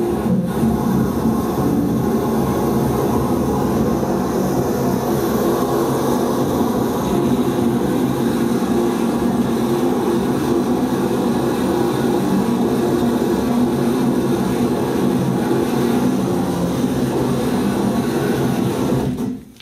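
Live electronic noise music from a tabletop rig of effects pedals and electronics: a loud, dense rumbling drone with steady low tones, dropping out briefly near the end.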